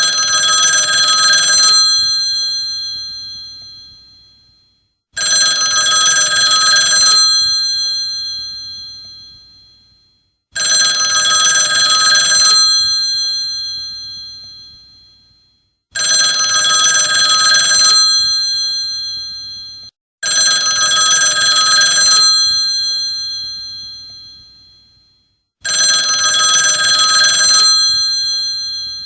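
Old telephone's electromechanical bell ringing: six rings of about two seconds each, every five seconds or so, each one fading out after the clapper stops.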